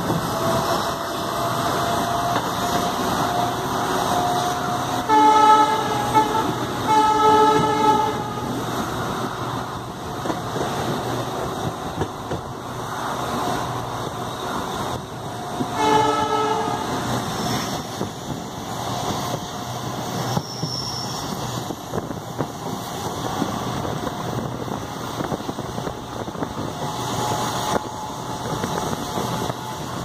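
WDP-4 EMD diesel locomotive's horn sounding over the steady rumble of the running train: two blasts about five and seven seconds in, then a shorter one around sixteen seconds.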